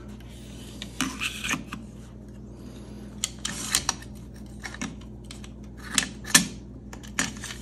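Metal and polymer parts of a Kel-Tec CMR-30 rifle clicking and scraping as its barrel assembly is slid and fitted back into the receiver during reassembly: scattered sharp clicks and short scrapes in a few separate clusters.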